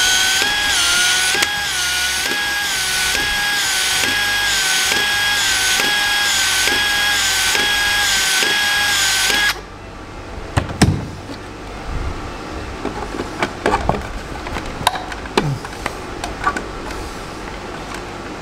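Cordless PEX expansion tool running on the end of a PEX pipe: a steady motor whine that dips about once a second with a click as the head expands the pipe in steps. It stops suddenly about ten seconds in, and scattered knocks and clicks from handling plastic plumbing fittings follow.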